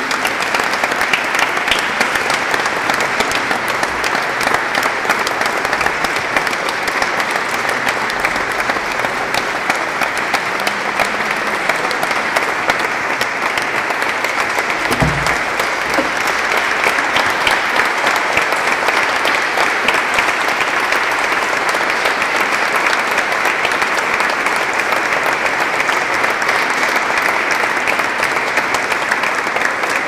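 An audience applauding steadily, with dense, even clapping throughout, recorded inside a large church.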